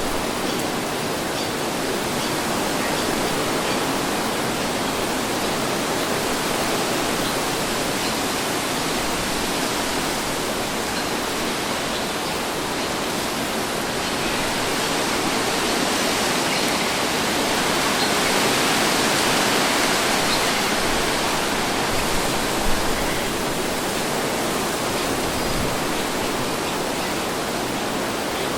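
Steady wind blowing, a broad even rush that swells gently for a few seconds about two-thirds of the way through, with one brief soft bump a little later.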